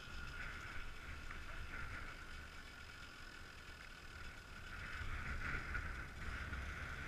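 Wind buffeting the microphone in uneven gusts, strongest near the end, over a faint steady high hum.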